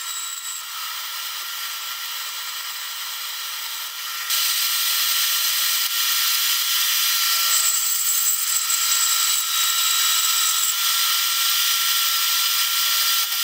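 Portable band saw running and cutting through a motorcycle sprocket of aluminum and steel, a steady whine with a few held tones. It grows louder about four seconds in and stays there.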